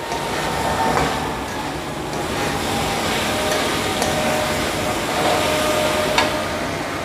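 Vegetables and chopped tomatoes sizzling in an aluminium wok as a spatula stirs and scrapes them, with a couple of sharp clicks of the spatula against the pan, about a second in and near the end. The tomatoes are being fried until they soften.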